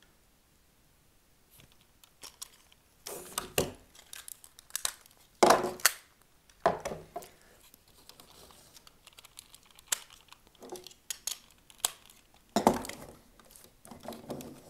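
Power Rangers Legacy Megazord toy being handled and reassembled: scattered clicks, knocks and rattles of its plastic parts on a wooden table, with paper rustling from the instruction sheet. Quiet for the first two seconds, then irregular knocks, the loudest about five and a half seconds in.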